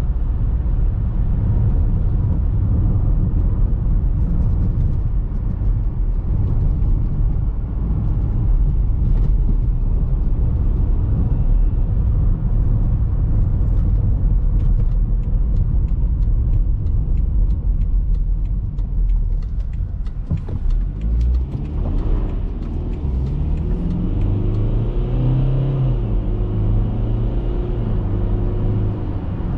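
In-cabin road rumble of a BMW X3 F25 driving over a rough, patched road, with scattered light ticks and knocks from the surface and suspension. From about three-quarters of the way in, the 2.0-litre four-cylinder diesel is heard pulling, its pitch rising, dropping once at an automatic gearshift, and rising again.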